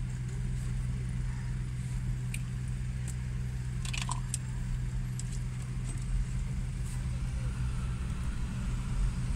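Vehicle engine idling steadily, heard from inside the cabin, with a few light clicks and jingles about four seconds in.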